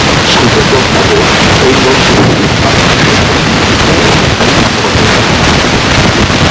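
Loud, steady hiss and rumble of recording noise, with a faint voice barely audible underneath it.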